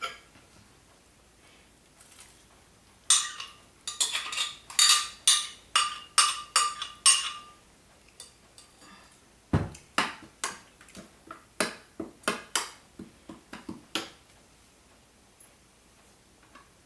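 A metal spoon clinking and scraping against a glass blender jar as ground bitter melon paste is scooped out: about a dozen ringing taps from about three seconds in. A dull knock follows near the tenth second, then a quicker run of drier taps that stops about three seconds before the end.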